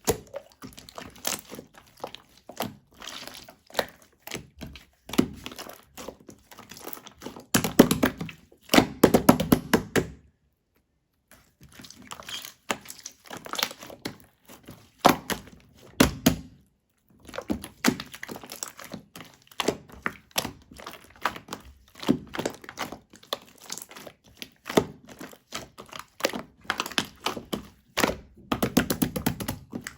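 Irregular knocks, taps and rustling, like close handling noise, broken by two brief complete dropouts about ten and sixteen seconds in.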